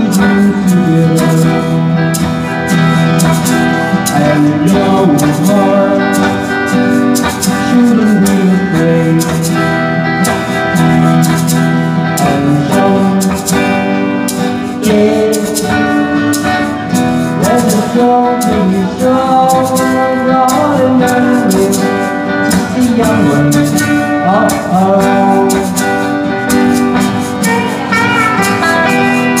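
Live band playing an early-1960s pop song, led by guitars, with singing.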